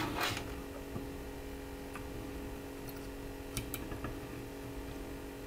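Quiet steady hum with a few faint, short clicks, most of them between two and four seconds in.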